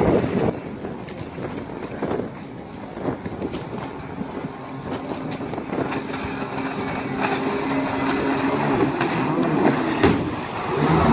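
Stand-up jet ski engine running as it skims the water. It drops away about half a second in, hums steadily in the middle, and grows louder near the end as the craft comes close.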